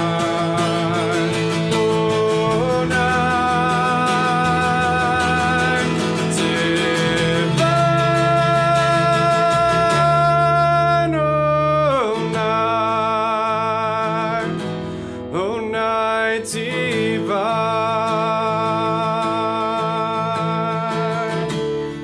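A singer holding long notes with vibrato over acoustic guitar, with a falling slide in pitch about halfway through.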